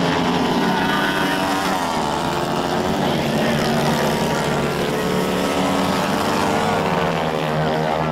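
Engines of several 110cc racing karts running at full throttle on track. Their overlapping pitches rise and fall as the karts accelerate, lift for corners and pass by.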